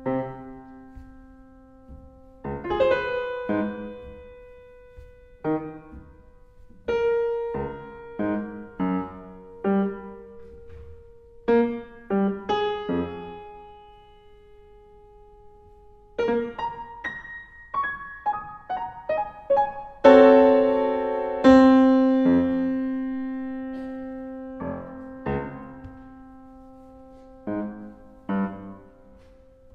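Yamaha CFX concert grand piano played solo, recorded through a DPA 4006 microphone: a slow passage of struck chords and short runs of notes left to ring and fade. The two loudest chords come about two-thirds of the way through and die away slowly.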